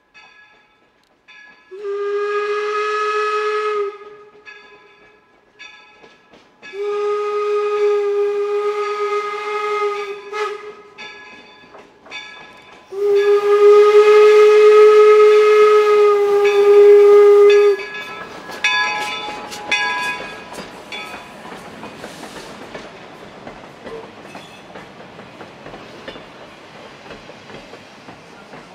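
Steam whistle of the replica 4-4-0 steam locomotive York blowing three long, steady blasts, with the locomotive's bell ringing at an even beat through and between them. After the last blast, the train's wheels clatter along the rails as the coaches roll past, fading toward the end.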